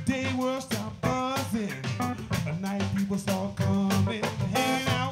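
Live funk band playing: a drum kit keeping a steady beat under a busy electric bass line, with electric guitar, keyboards and saxophone, taken straight from the mixing desk.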